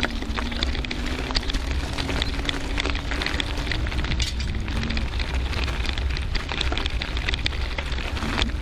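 Bicycle tyres crunching and crackling over a loose gravel path, with wind rumbling on the bike-mounted camera's microphone. A faint hum stops about halfway through.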